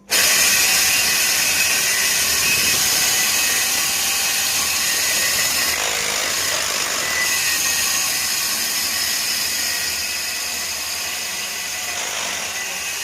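Electric core drill starting abruptly and running steadily as it cuts a round hole through a wall, with a constant high whine over the grinding noise.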